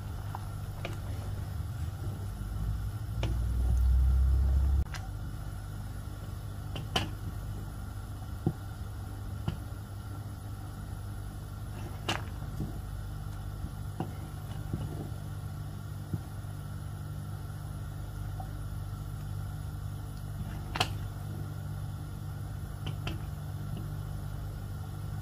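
A wooden spoon stirring payasam in a metal pan on the stove, knocking against the pan a few times as sharp single clicks, over a steady low hum. A louder low rumble lasts about two seconds near the start.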